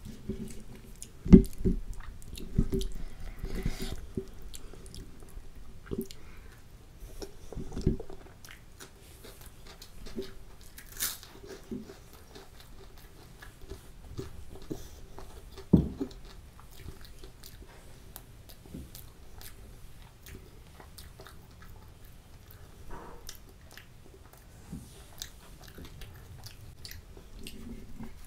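Close-miked chewing and biting of chole and soft kulcha bread: wet mouth sounds and small crunches, with a few louder knocks about a second in, around eight seconds and around sixteen seconds. A faint steady hum runs underneath.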